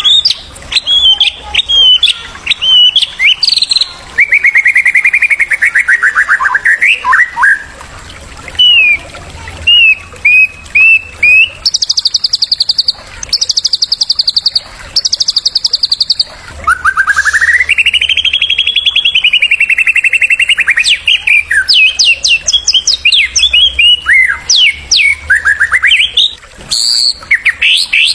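A male white-rumped shama singing a loud, varied song of the kind used as a tutor song: quick sweeping whistles, long wavering whistled notes, and three rapid buzzy trills in the middle.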